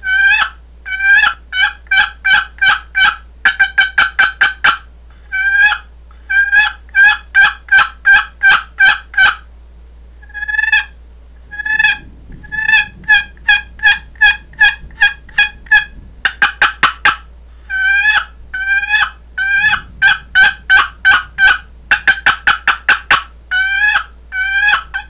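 Custom African shedua wood box turkey call, its paddle lid scraped across the box edge to give loud strings of turkey-like yelping notes, some runs slow and spaced and some quick and choppy.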